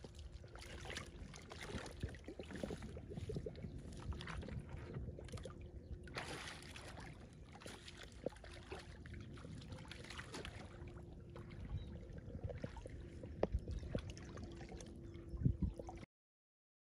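Stream water sloshing and splashing with scattered knocks and thuds, cutting off abruptly near the end.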